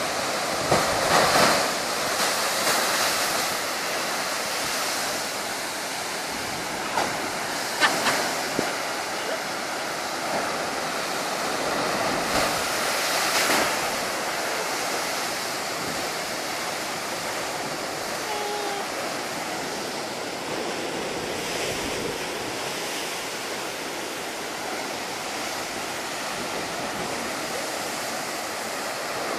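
Heavy ocean surf breaking and churning against rocky sea cliffs: a steady rush of foaming water that swells louder with the bigger waves, several times in the first half.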